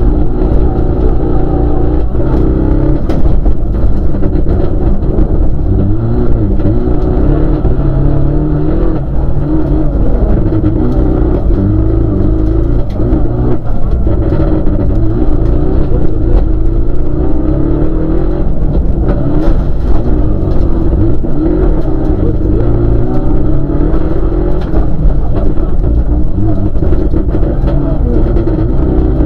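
Rally car engine heard from inside the cockpit, revving hard and rising and falling in pitch as the car accelerates, lifts and changes gear on a dirt stage. Loose stones and grit tick and knock against the bodywork now and then.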